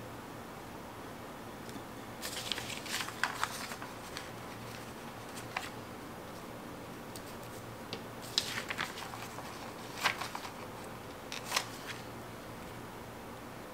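Metal tweezers handling sticker paper: short clusters of small clicks and crinkles as a sticker is peeled off the sheet and pressed down, a few times over a faint steady hiss.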